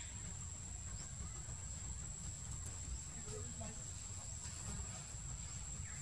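Outdoor ambience: a steady high-pitched insect drone over a low wind rumble on the microphone, with a few faint chirps.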